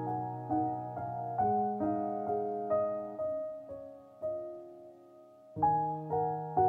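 Background piano music: gentle notes struck at an even pace, thinning out and growing quieter past the middle, then picking up again with fuller chords near the end.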